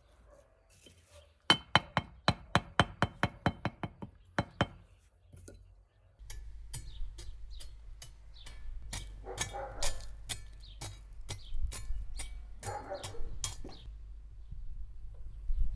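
About a dozen quick hammer taps with a ringing metallic note, roughly four or five a second, while a brick is fitted into a patch in a clay tandoor dome. After a pause, an iron poker clinks, knocks and scrapes irregularly inside the firebox of a cauldron stove.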